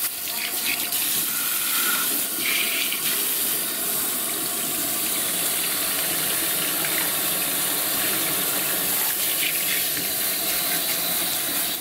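Salon shampoo-bowl hand sprayer running, water spraying steadily onto wet hair and splashing into the basin as the hair is rinsed.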